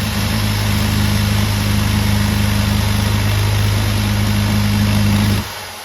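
Corded power drill running steadily while a plastic fitting is ground down, a steady hum over a grinding hiss. It is switched off about five and a half seconds in and winds down.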